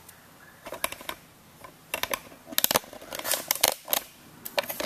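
A run of light, irregular clicks and taps, some in quick clusters, starting about half a second in.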